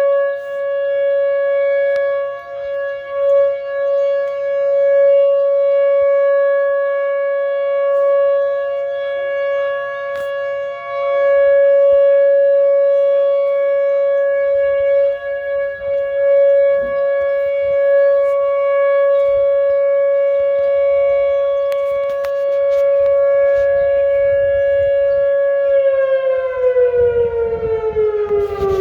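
Whelen WPS 2904 electronic tornado siren sounding a steady alert tone, its loudness swelling and dipping every few seconds. A few seconds before the end the pitch starts to slide down as the tone winds down.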